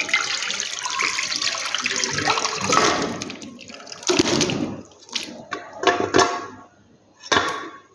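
Broth and steamed beef pieces being poured from a cooking pot into a karahi: a steady splashing pour of liquid for about the first three seconds, then several separate splashes and knocks as the remaining meat is tipped in.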